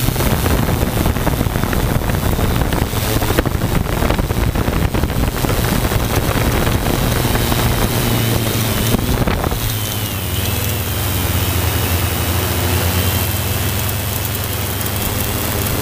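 Multirotor drone's motors and propellers buzzing steadily, with a thin high whine over a low hum, heard from its on-board camera with wind noise on the microphone; the pitch shifts slightly about nine to ten seconds in.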